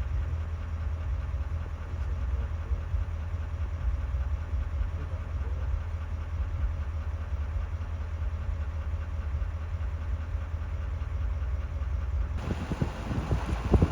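Steady low engine and road rumble heard from inside a moving vehicle. About twelve seconds in it gives way abruptly to gusts of wind buffeting the microphone.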